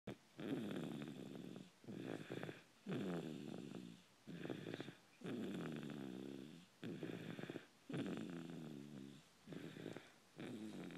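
Steady rhythmic snoring from someone asleep. A longer rasping snore on each breath in alternates with a shorter one on each breath out, about one full breath every two and a half seconds.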